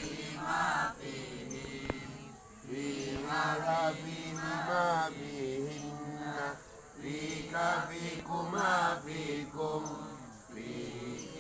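Boys' voices chanting a recitation aloud together, in sung phrases of a few seconds with short breaks between them.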